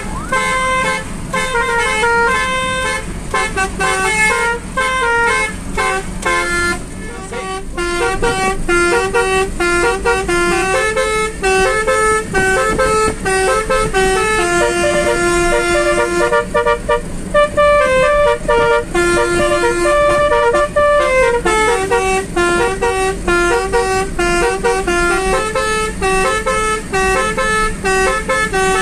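Basuri musical air horn playing a quick tune, note after note with short pauses, over the steady low hum of the moving car.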